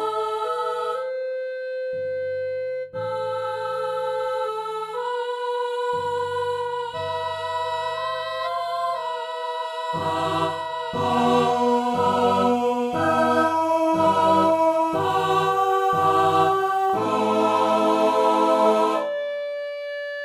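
Slow choral piece for clarinet, timpani, soprano soloist and choir. A clarinet melody and soprano solo run over timpani strokes at first. About halfway through the choir comes in with short 'cul-pa' chords on every beat, about one a second, and the music grows louder until just before the end.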